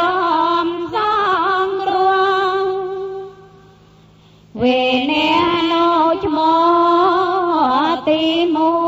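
One voice chanting a Buddhist Pali text in long, drawn-out, wavering notes. The voice fades out a little after three seconds in and comes back abruptly at four and a half seconds.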